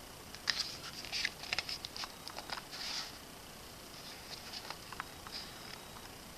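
Glossy photo book pages being handled and turned: a cluster of crisp paper rustles and light ticks in the first half, then a few more scattered ones.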